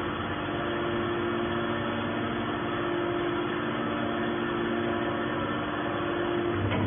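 Hydraulic metal can baler's power unit, its electric motor and pump, running with a steady hum.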